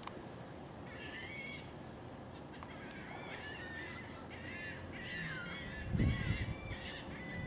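A flock of gulls calling: harsh, repeated cries in about five bouts, roughly a second apart, starting about a second in. A low rumble of wind on the microphone comes in near the end.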